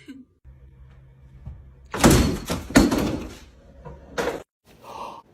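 A cluster of loud thuds and a clattering crash about two seconds in, then another thud about a second later: a cat lunging at a television screen and knocking into it.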